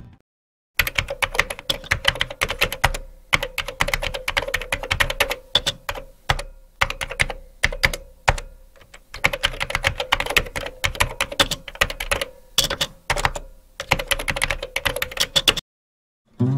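Computer keyboard typing sound effect: rapid key clicks in runs broken by short pauses.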